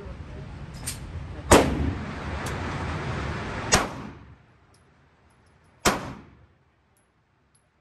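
Gunshots at an indoor shooting range: three loud, sharp reports about two seconds apart, each with a short echoing tail, and a fainter shot just before them.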